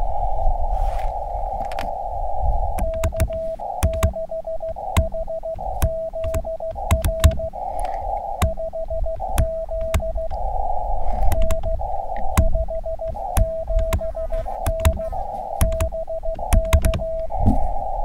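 Morse code on an Elecraft KX2 transceiver: a steady single-pitched beep keyed in dits and dahs, starting about three seconds in, with sharp key clicks. Between characters there is receiver hiss, filtered to a narrow band.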